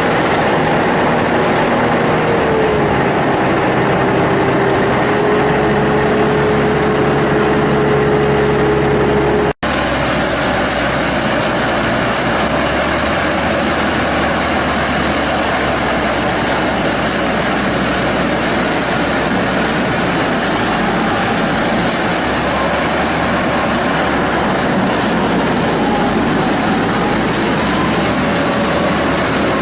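Corn harvester engine and machinery running steadily under load, with a whining tone that slides in pitch. About ten seconds in the sound breaks off for an instant and resumes brighter and hissier.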